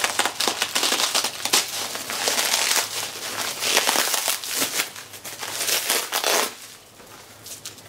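Plastic packaging crinkling and crackling as it is handled and unwrapped. It is dense with sharp crackles for about six seconds, then eases off near the end.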